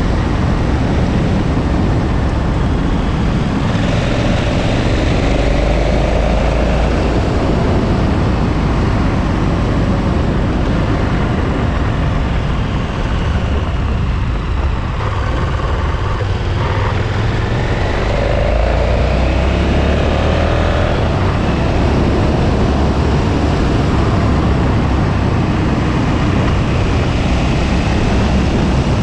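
KTM 1290 Super Adventure's V-twin engine running on the move under a steady rush of wind and road noise. The engine note rises as the bike accelerates about five seconds in and again about eighteen seconds in, easing off briefly in between.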